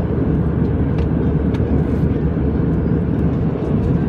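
Steady low rumble of airliner cabin noise in flight, with a few faint ticks over it.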